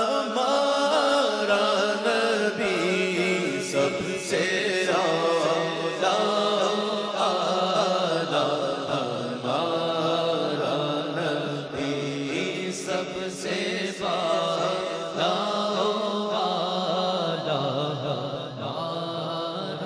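A man's voice singing an Urdu naat without instruments, in long drawn-out melodic lines over a steady low drone, trailing off near the end.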